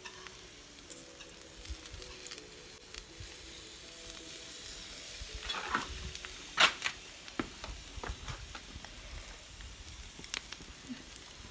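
Fish sizzling on a charcoal grill's wire grate, a faint steady hiss, with a few sharp clicks and knocks in the second half as pieces of fish are set down on the metal grate.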